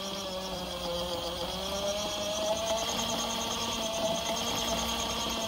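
Small 12-volt DC gear motor of a mini mill's X-axis power feed running under its speed-control board, turning the table handwheel through its gears with a steady whine. The pitch dips slightly and then rises a little about two to three seconds in as the speed is adjusted.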